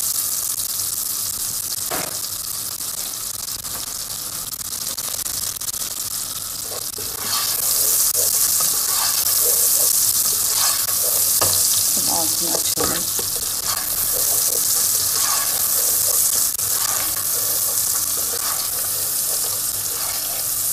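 Chopped green peppers and garlic sizzling in hot olive oil and butter in a pot, stirred now and then with a spoon. The sizzle grows louder about seven seconds in.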